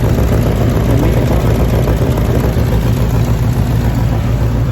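2011 Mustang GT's 5.0 V8 idling steadily through a cat-deleted Corsa exhaust, a loud, deep, even exhaust note.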